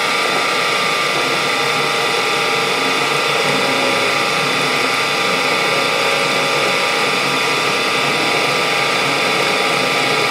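A drill runs steadily as its bit bores deeper into a factory balance hole in a big-block Chevy crankshaft's counterweight, taking out metal to balance the rotating assembly.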